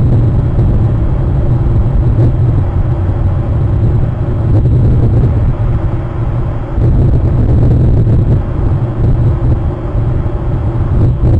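Steady low rumble with a hiss over it, dipping slightly for a moment about two-thirds of the way through.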